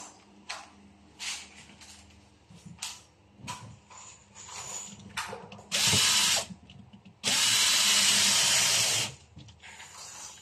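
Cordless drill-driver driving a screw into a shoe cabinet panel: a short run of about half a second, then a steady run of about two seconds. Light clicks and knocks of handling come before.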